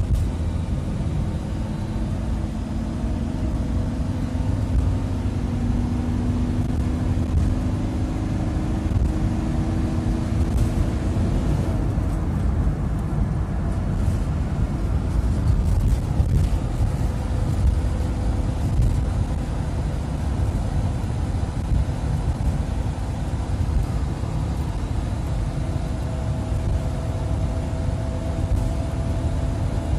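Cabin sound of a Fiat Ducato 2.5 TDI four-cylinder turbodiesel motorhome on the road: the engine pulls and rises in pitch as the van accelerates to about 100 km/h, then cruises under a steady low rumble of engine, road and wind noise.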